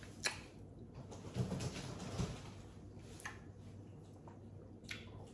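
Faint chewing of a pickle, with three sharp crunching clicks and a low closed-mouth murmur about a second and a half in.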